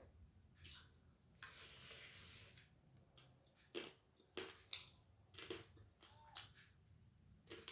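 A person eating rice and curry close to the microphone: faint chewing with soft wet mouth smacks and clicks, the sharpest several between about four and six and a half seconds in, after a soft hissy rustle a second or so in.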